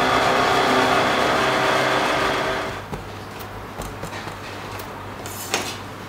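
Motor-driven noodle-cutting machine running steadily, its rollers cutting a dough sheet into strands; it stops about three seconds in. A low hum remains, with a few light knocks and taps and one sharper knock near the end.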